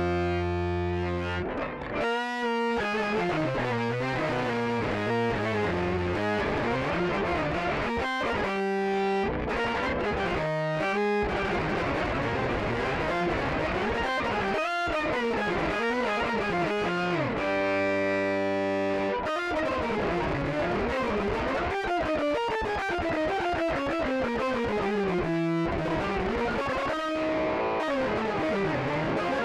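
Electric bass guitar played through an MXR Poly Blue Octave pedal, the effect adding octave voices to the notes. Melodic runs are broken up by a few held notes or chords, the longest near the middle.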